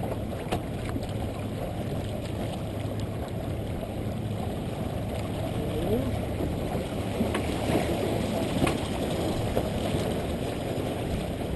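Water rushing and splashing along the hull of a sailboat under sail, with wind on the microphone. Faint voices and a couple of sharp clicks sound over it.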